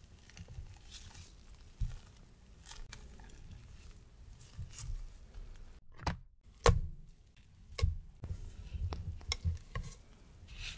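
A silicone spatula scrapes and folds thick raspberry cream in a glass measuring jug. Partway through, several sharp knocks follow as the jug is tipped and scraped out into a stainless-steel mixer bowl.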